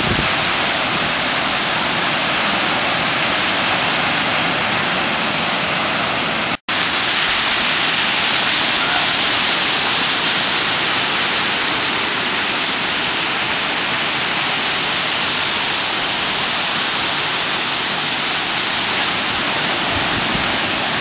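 Ocean surf breaking and washing onto a sandy beach, a steady rushing noise that drops out completely for an instant about six and a half seconds in.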